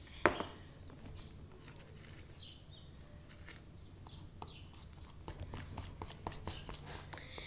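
A sharp knock about a quarter second in, then a run of small, irregular sticky clicks that grows denser: a spoon stirring a glue-based slime mixture in a bowl.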